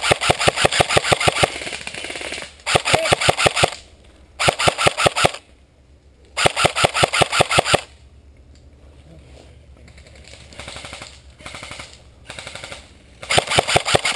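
Airsoft guns firing full-auto in bursts of rapid clicking shots. Four loud bursts in the first eight seconds are followed by a few fainter, more distant bursts, then another loud burst near the end.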